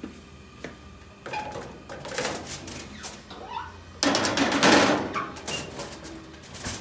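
Metal clattering as a gas oven is opened and a round metal pizza pan is handled. About four seconds in comes a loud scrape as the pan slides onto the oven rack, and near the end a knock as the oven door shuts.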